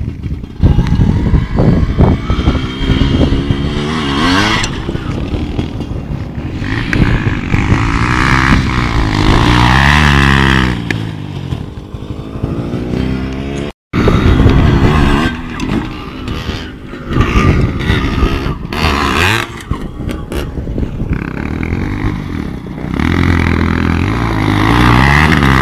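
Motorcycle engine revving hard, its pitch climbing and dropping again several times as the throttle is worked, over a constant low rumble. The sound cuts out completely for a moment about 14 seconds in.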